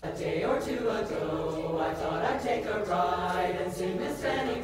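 Women's choir singing.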